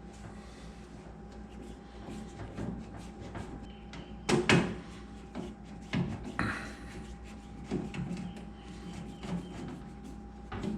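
Scattered knocks and clunks as the parts of an over-the-range microwave's vent blower are set back in place, the loudest about four seconds in, over a steady faint hum.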